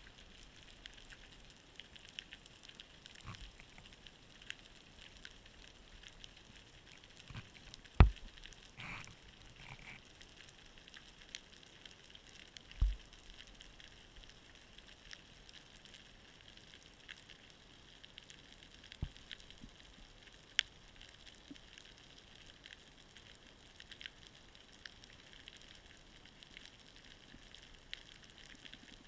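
Underwater ambience: a steady faint crackle of many fine clicks, broken by a handful of sharp knocks, two of them much louder in the first half.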